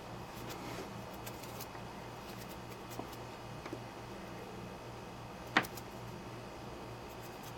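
Faint handling of a small electrical wire being stripped and trimmed: light ticks and one sharp click about five and a half seconds in, over a steady low electrical hum.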